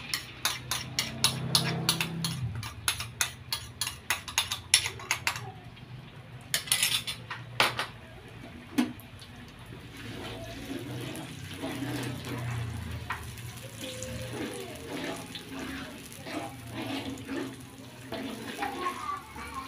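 A metal spoon clinking quickly against a ceramic bowl and the rim of a wok as wet spice paste is scraped out into hot oil. From about halfway, a long metal spatula scrapes and stirs the paste around the wok in repeated strokes while it sizzles in the oil.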